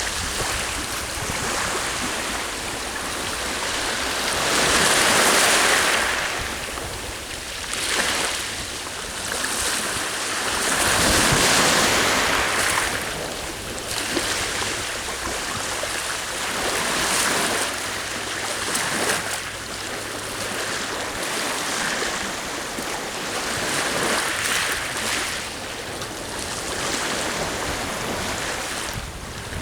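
Sea waves washing onto the shore, surging and falling back every few seconds, the biggest surges about five and eleven seconds in, with wind blowing across the microphone.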